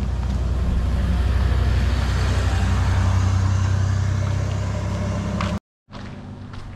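A pickup truck driving past close by: its engine and tyre noise build to a peak about two to three seconds in and then ease off. Near the end the sound cuts out suddenly for a moment, then faint footsteps on pavement.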